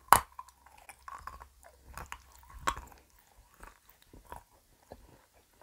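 Biting into and chewing a small milk-chocolate Easter egg close to the microphone: a sharp crack of the bite just after the start, another snap about two and a half seconds in, then soft irregular chewing clicks.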